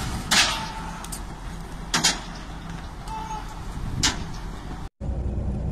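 Heavy vehicle engine running with a steady low rumble, with three sharp clicks or knocks about two seconds apart. It cuts out briefly about five seconds in and gives way to a different steady low hum.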